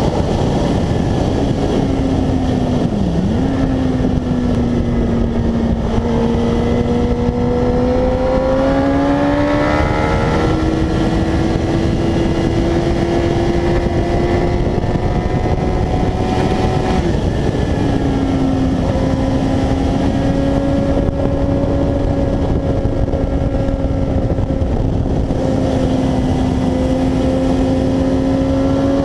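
Sport motorcycle engine running hard on a race track, heard from an onboard camera with heavy wind rush over the microphone. The engine note climbs in pitch, steps about ten seconds in, drops away around seventeen seconds, then holds fairly steady and rises again near the end.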